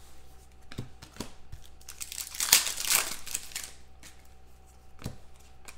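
Trading cards and their packaging being handled: rustling and crinkling with a few light clicks, loudest about two and a half to three seconds in.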